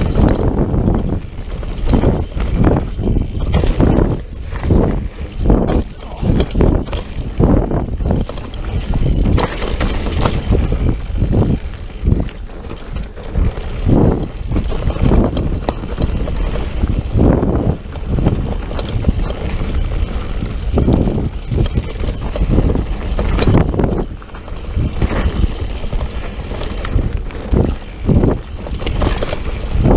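Mountain bike riding fast down a rough dirt singletrack: a steady low rumble of wind on the bike-mounted camera's microphone and tyres on dirt, with frequent irregular knocks and rattles as the bike hits roots and rocks.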